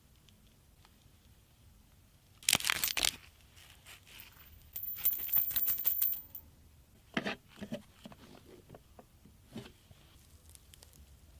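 Plastic packaging being torn open and crinkled in a few short bursts, with a longer crackly stretch around the middle.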